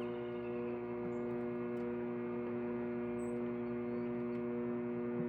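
Microwave oven running mid-cycle: a steady electrical hum with no change in pitch.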